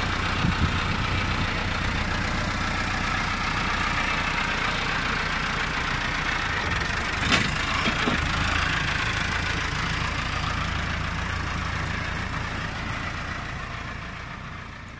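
Massey Ferguson 385 tractor's four-cylinder diesel engine running steadily, with one sharp knock about seven seconds in. The sound fades away near the end.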